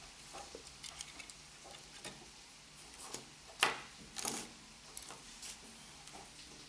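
Plastic Lego bricks and minifigures clicking and tapping on a tabletop as they are handled, with a sharper knock about three and a half seconds in and a quick run of clicks just after.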